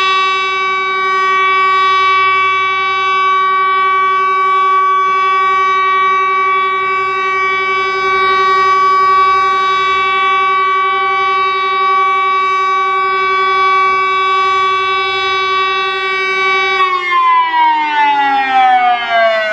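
Tesla UEAJ electronic siren sounding the continuous steady test tone of the regular siren test: one unwavering held note. Near the end the tone slides down in pitch as the siren winds down, ending the test signal.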